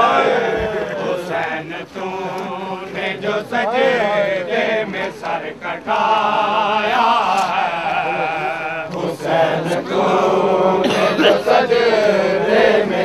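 Men chanting an Urdu noha (Shia mourning lament), with short slaps that fit chest-beating (matam) falling through the chant.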